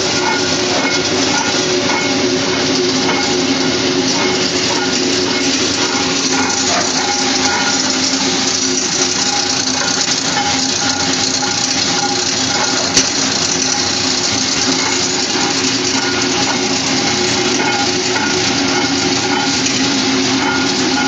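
Motor-driven coffee wet-processing machinery running steadily, a constant machine hum under a loud rushing noise like flowing water. One sharp click about 13 seconds in.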